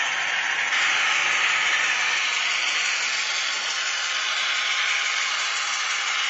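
H0-scale model freight train, a Mehano Blue Tiger 2 locomotive with Märklin Faccns hopper wagons, running along the track: a steady hissing rush that grows a little louder under a second in.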